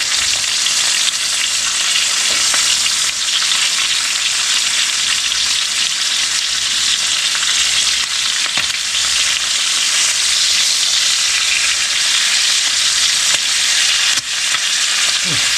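Chicken thighs searing in a hot skillet: a loud, steady frying sizzle, with a few sharp ticks along the way.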